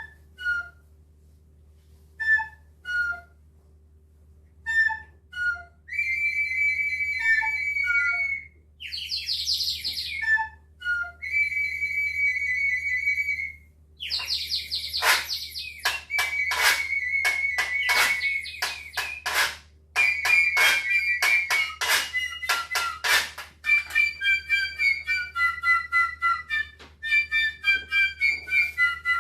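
Whistles blown in bird-call fashion: cuckoo-like falling two-note calls repeat every couple of seconds. From about a quarter of the way in, held shrill whistle notes join them, then fast warbling trills and quick runs of notes.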